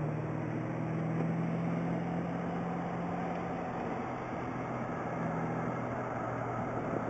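Corvette Z06's V8 engine droning at steady revs, heard inside the cabin with road and wind noise. Part of the drone fades out about six seconds in.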